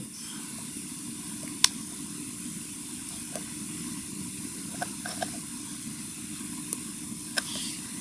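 Steady background hiss, with a few faint, sharp clicks scattered through it.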